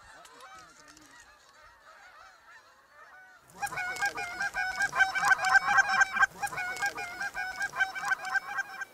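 Canada geese honking: a few faint scattered calls, then from about three and a half seconds in a loud, dense chorus of honks from a large flock.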